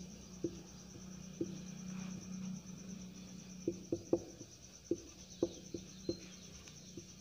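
Whiteboard marker tapping and scraping on the board as words are written: a dozen or so soft, irregular taps. A steady high-pitched chirring runs underneath.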